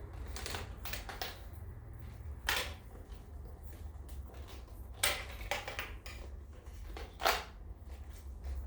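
Hands wrapping a metal detector's coil cable around its plastic and metal shaft: scattered light rustles and clicks, with three sharper knocks about two and a half, five and seven seconds in. A low steady hum runs underneath.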